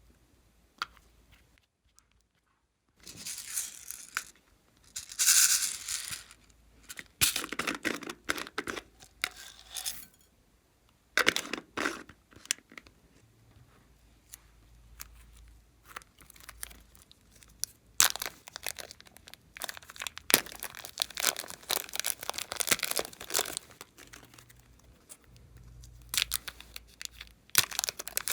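Glossy slime being pressed, stretched and pulled apart by hand: sticky crackling and tearing sounds coming in irregular bursts, beginning about three seconds in.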